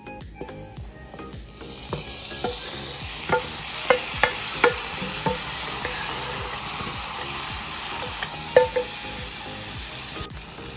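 Wooden spatulas scraping and knocking fried grated coconut out of a nonstick pan into a pot of kootu curry, with a few sharp taps against the pan. From about two seconds in, a steady sizzle runs under the scraping as the hot coconut and oil go into the curry.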